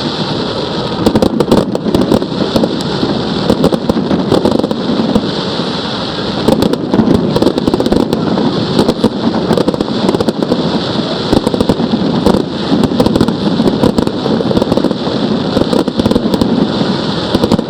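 A fireworks display: shells bursting in quick, irregular succession with continual crackling, many bangs close together.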